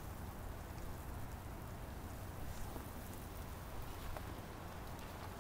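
Faint, steady blizzard wind on the microphone: a low rumble under an even hiss.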